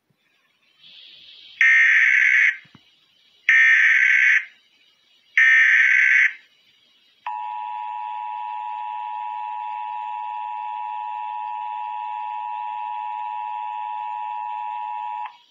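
Emergency Alert System tones: three short bursts of buzzing digital header data about two seconds apart, then the steady two-tone attention signal held for about eight seconds before cutting off.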